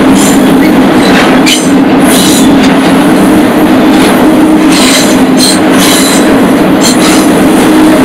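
A moving freight train heard from on board an open railcar: a loud, steady rolling noise with a constant low drone, broken every second or so by brief high-pitched rattles or screeches.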